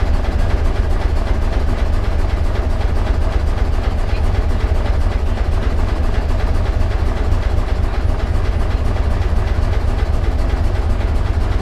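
Engine of a Barkasse harbour launch running steadily under way, heard inside its wooden cabin as a deep, rapid, even pulsing beat.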